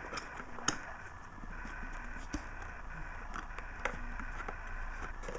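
Faint handling sounds of a taped product box being opened: light scrapes and a few sharp clicks as the flaps and contents are worked loose.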